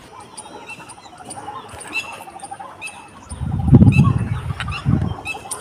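Small birds chirping with short, high calls, over a string of quick, evenly spaced faint notes. A loud low rumble comes about three and a half seconds in, lasts about a second, and returns briefly near the end.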